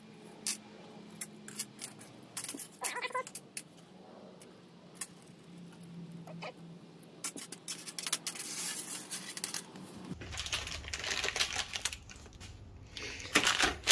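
Irregular light metal clicks and clinks as the clipped cage of an old differential carrier bearing is pulled off and its loose steel rollers drop out onto the workbench. A rougher, denser handling noise takes over for the last few seconds.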